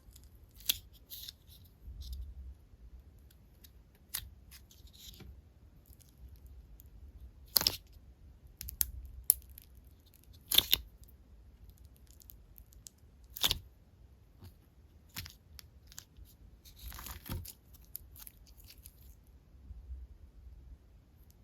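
Slime being played with by hand, giving scattered sharp pops and sticky clicks a few seconds apart, with a short run of crackling late on.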